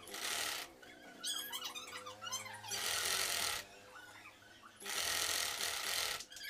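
Sewing machine stitching in three short runs of about a second each, with a fainter wavering, whine-like call between the first two runs.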